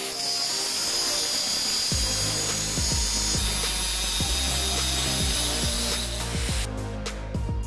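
Angle grinder with a thin cut-off disc cutting through steel clamped in a vise: a steady high whine and hiss that stops about six and a half seconds in. Background music with a beat plays underneath.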